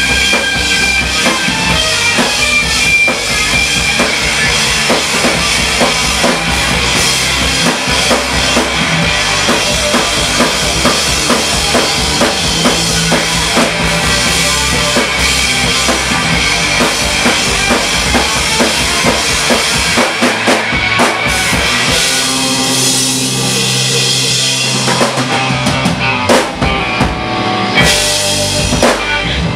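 Live rock band playing an instrumental passage: drum kit with kick and snare, electric guitars and bass guitar. About twenty seconds in the bass drops out briefly, then the band comes back with a few sharp hits.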